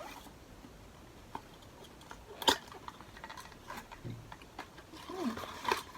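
Small clicks and taps from handling cardboard packaging as an advent calendar door is opened and the item inside is taken out, with one sharp click about two and a half seconds in.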